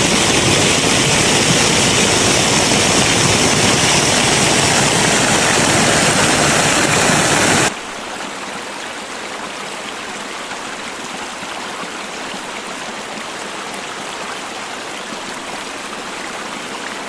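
Waterfall pouring down a mossy rock face, a loud, close, steady rush of falling water. About eight seconds in it cuts off abruptly to a much quieter, steady flow of water with less depth.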